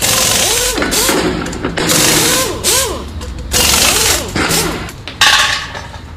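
Background music: a looped track with a gliding melody that repeats about every second and a half to two seconds over a heavy beat.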